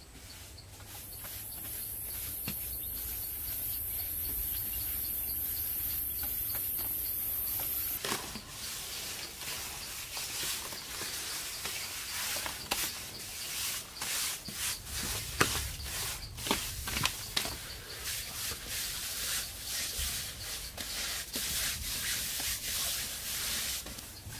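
Hands rubbing and smoothing damp sand and mud on an earthen wall: scratchy rubbing with irregular light clicks and knocks. Over the first part a steady high insect drone sounds, cutting off suddenly about eight seconds in.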